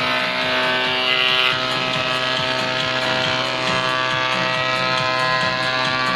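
Combination jointer-planer running with a steady hum from its motor and cutterhead, a board feeding through the thickness planer beneath the jointer tables.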